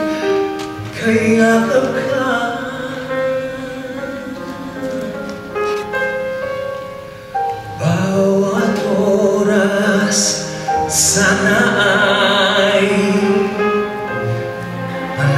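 Male baritone singing a Tagalog ballad into a microphone with a live orchestra accompanying. He holds long notes with vibrato, and the music swells from about eight seconds in.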